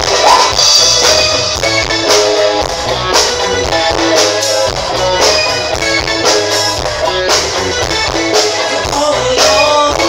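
Live rock band playing: electric bass, drum kit with a strong hit about once a second, and guitar, with a singer's voice.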